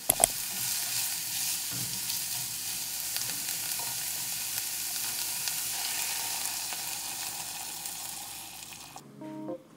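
Mushrooms and vegetables sizzling in a frying pan, a steady hiss. It softens near the end as liquid vegan egg is poured over them, then stops abruptly.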